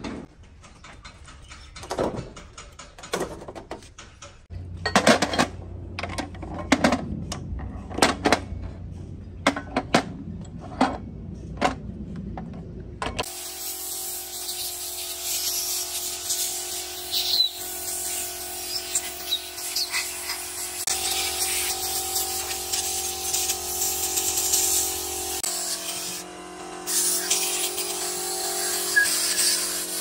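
A run of sharp metallic knocks and clinks from tools and parts being worked by hand. Partway through, the sound switches suddenly to a power tool running steadily with a hissing whine.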